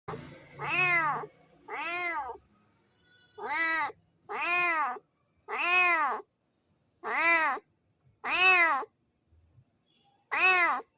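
A domestic cat meows again and again: eight separate meows, each about half a second long, that rise then fall in pitch.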